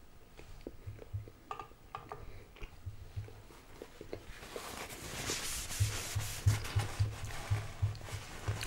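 Chewing close to the microphone, then from about halfway a paper napkin rubbing and crumpling, louder than the chewing.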